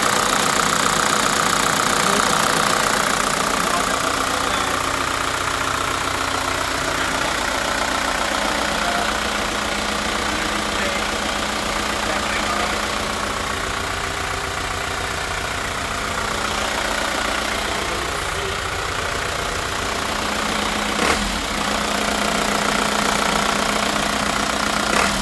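Mitsubishi Rosa bus's 4M51 four-cylinder diesel engine idling steadily, with one short click near the end.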